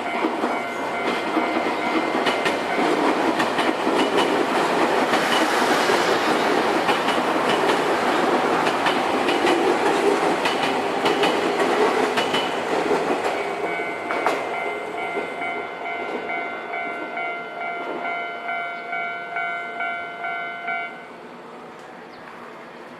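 A train passing over a JR Kisei Main Line level crossing, its wheels clicking rhythmically over the rail joints, while the crossing's warning bell rings steadily. The train noise fades in the second half, and the bell cuts off about two seconds before the end.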